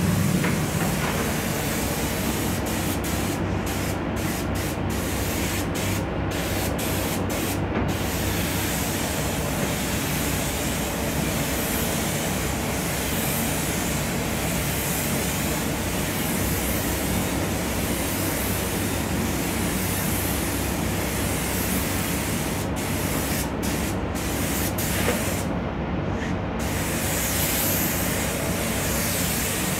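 A compressed-air paint spray gun hisses steadily as it lays paint on a car body, over a steady low hum. The hiss thins out briefly several times as the trigger is let off between passes.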